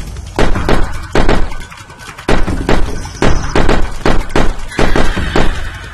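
Rapid gunshots, roughly three a second, with a short pause about two seconds in.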